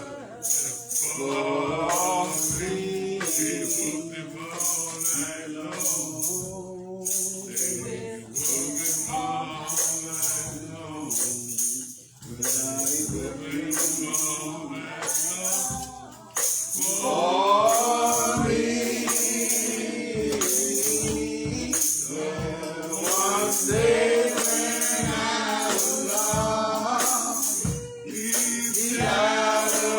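Church congregation singing a slow gospel hymn together, with a tambourine shaken and struck on a steady beat.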